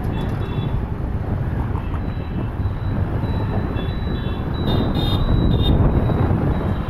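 Busy street traffic from close by: motorcycle, scooter and auto-rickshaw engines with a steady low rumble, and several short vehicle horn beeps, clustered about four to six seconds in.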